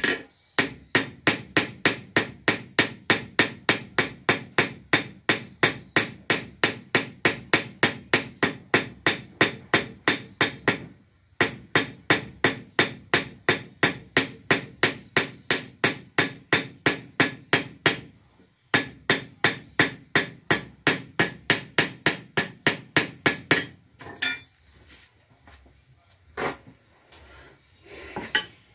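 Small hand hammer striking a metal strip laid on a piece of railway rail used as an anvil: fast, even blows, about four a second, each with a bright metallic ring. There are three runs with two short pauses, then a few scattered knocks near the end.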